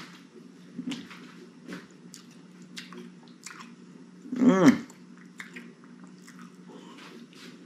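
A man chewing with faint mouth clicks, and about four and a half seconds in a short pained groan that rises and falls in pitch. The pain is first-bite syndrome, a sharp ache in the jaw gland at the first bites of food.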